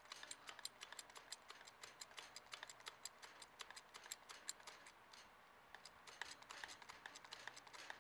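Faint, irregular light clicks, several a second with a short pause about five seconds in, from a homemade hydraulic-and-screw bench vise as its steel jaw slides slowly open.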